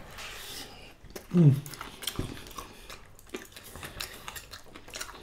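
Close-up eating sounds: chewing, with small clicks of fingers mixing rice and dal on china plates. About a second and a half in comes one short voice-like sound that falls in pitch.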